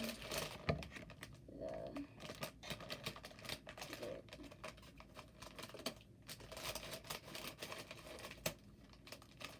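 Irregular small clicks and light rustling of hands handling and opening a package.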